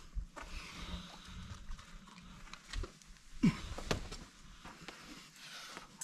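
A boulderer breathing hard with forceful exhales of effort as he pulls through moves, with a short falling grunt about three and a half seconds in, followed by a sharp slap just before four seconds in.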